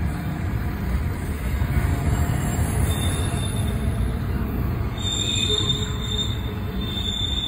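Double-stack intermodal freight train rolling past: a steady low rumble of the cars, with a thin high wheel squeal that comes in about three seconds in and grows stronger from about five seconds.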